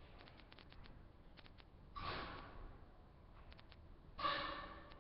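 Two breathy exhalations or sighs, the second louder, over a teleconference phone line, with faint scattered clicks on the line.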